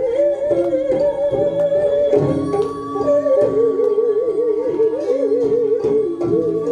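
Korean traditional music for hallyangmu: a melodic line wavering with heavy vibrato over drum strokes, with a second higher held note joining about two seconds in.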